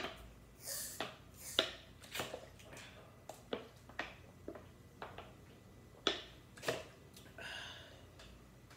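Someone drinking from a plastic bottle: a run of short, sharp gulping clicks about every half second, with a brief breathy hiss near the end.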